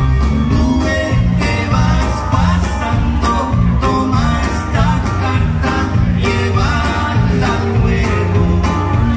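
Live conjunto band playing dance music through a PA: button accordion and bajo sexto over bass and drums, with a steady beat.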